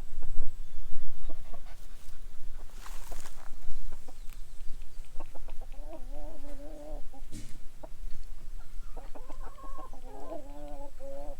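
Chickens clucking, with two drawn-out wavering calls, one about halfway through and one near the end, among scattered knocks and rustling.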